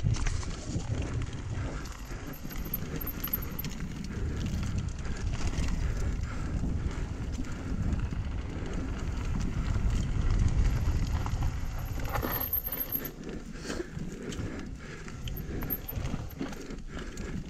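Mountain bike rolling fast over a dry dirt trail: knobby tyres crunching over dirt, rocks and leaves, with the bike's chain and frame rattling and clicking over bumps. A steady low rumble of wind on the camera microphone runs underneath.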